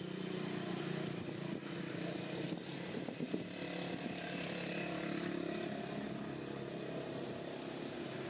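A motor engine running steadily in the background, a low even hum that swells a little in the middle.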